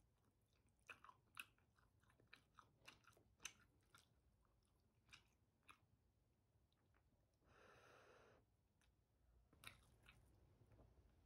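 Close-miked chewing of spicy flat glass noodles with cheese: soft wet mouth clicks and smacks, several a second at times. About two-thirds of the way in, a slurp of broth lasting about a second.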